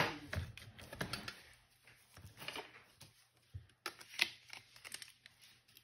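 Scattered light clicks and taps of a smartphone and its small parts being handled during a repair. The sharpest click comes right at the start and another about four seconds in.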